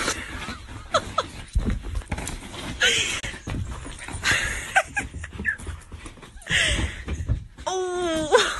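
A small dog frantically spinning and flopping about on a bed: repeated breathy bursts and rustling of the bedding, a few short falling squeaks, and a wavering drawn-out voice near the end.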